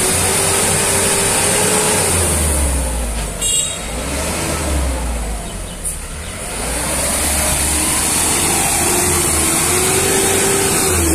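Street water-sprinkler truck passing close by, its engine running under a loud, steady hiss of water jetting from its spray nozzles onto the road. A brief high-pitched ring sounds about three and a half seconds in.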